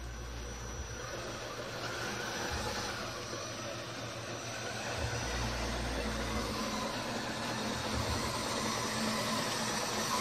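Electric motor and gearbox of a scale RC crawler running steadily as it drives slowly through mud, with a faint steady high whine.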